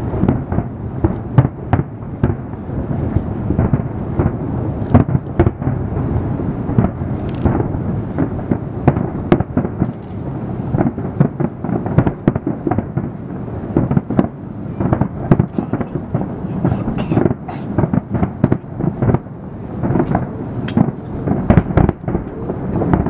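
Aerial fireworks display: many shell bursts in quick succession, sharp bangs over a continuous low rumble.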